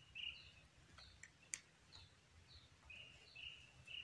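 Faint bird calls: short chirps repeated in runs near the start and again in the last second, with higher, falling notes in between, and a couple of faint clicks about a second and a half in.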